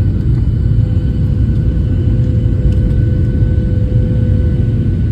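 Airliner cabin noise: a loud, steady low rumble from the engines and airflow, with a steady hum running over it.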